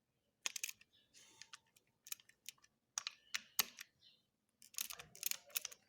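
Faint irregular clicks and short scrapes of a screwdriver and small metal and plastic parts on an unplugged Wahl Legend hair clipper as a screw is loosened.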